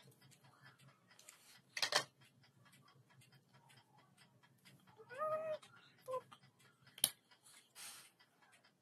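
A pet animal gives one short, high whining call about five seconds in, and a brief second call just after. A couple of sharp clicks sound before and after the calls.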